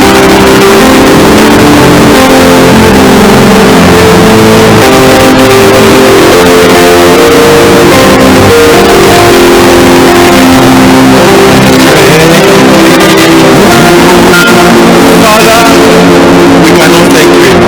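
Church band music under the service, with slow, held chords and guitar.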